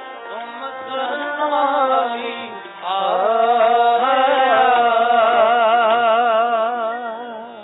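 Sikh devotional kirtan music: a melody over a steady drone. From about three seconds in, a long held note wavers evenly in pitch, then it fades out near the end.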